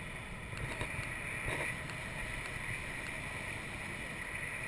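Steady wind rushing over the microphone of a camera on a parasail harness aloft, with a few faint clicks in the first second or so.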